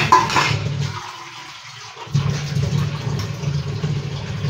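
Tap water running into a stainless steel sink while steel pots and containers are rinsed, with a clatter of utensils right at the start. The water sound drops away for about a second, starting about a second in, then resumes.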